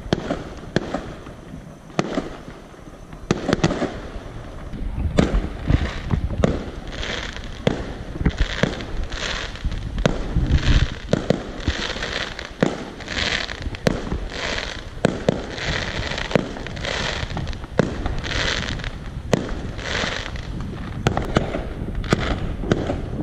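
Aerial fireworks going off: a string of sharp bangs throughout. From about five seconds in, crackling hisses repeat more than once a second.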